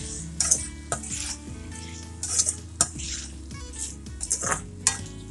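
Perforated steel spatula scraping and clanking against a black iron kadai, in repeated strokes, while stirring peas and boiled potatoes into a thick masala, with a light sizzle underneath.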